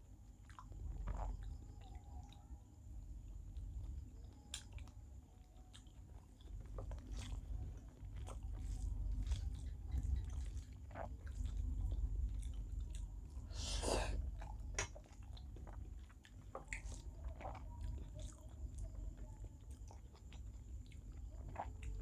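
A person chewing mouthfuls of rice and small-fish curry, with wet, sticky mouth sounds and small crunches. The crunches come at irregular moments, and one louder crackle comes about two-thirds of the way through.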